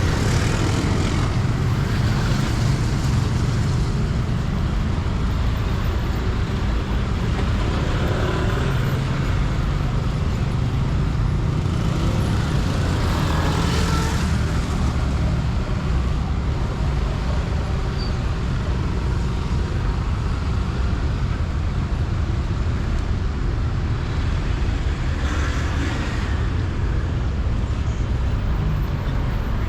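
Steady city road traffic: a continuous low rumble of engines and tyres, with louder swells as vehicles pass, about halfway through and again near the end.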